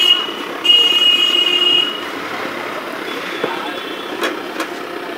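A vehicle horn beeps twice, a short blast then one a little over a second long, over steady street background noise. Two light clicks follow near the end.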